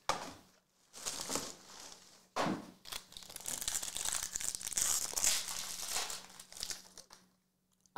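Foil wrapper of an Obsidian basketball card pack being torn open and crinkled by hand: a few short rips and rustles, then a longer stretch of steady crinkling that stops about a second before the end.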